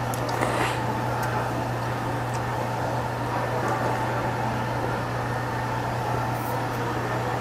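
Steady low mechanical hum and whir of room machinery, with a few faint light clicks in the first two seconds.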